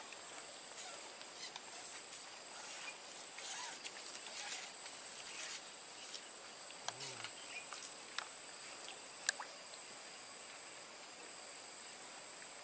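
Steady, high-pitched chorus of insects, unbroken throughout, with a few faint ticks and small sounds scattered over it.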